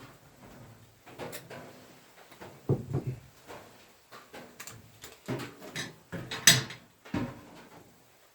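A series of irregular knocks and clatters, as of things being handled and set down; the loudest comes about six and a half seconds in.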